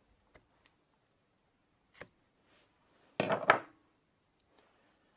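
Hand-work on an Echo chainsaw's pull-start cord with a small scissors-like tool: a few light clicks, then one louder scraping noise lasting about half a second a little over three seconds in.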